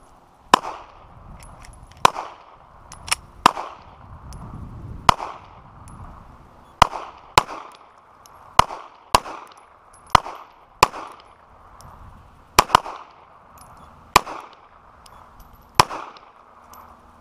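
Handgun shots, about fifteen at uneven intervals, some in quick pairs, each sharp crack trailing off in a brief echo.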